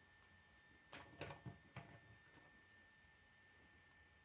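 Plastic K'nex rods and connectors clicking as they are handled and fitted together: a quick cluster of four or five sharp clicks about a second in, then faint room tone.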